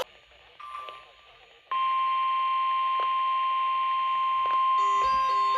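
Emergency alert attention tone: after a short faint beep, a loud steady single-pitch tone starts about two seconds in and holds. Near the end, short lower notes alternate underneath it.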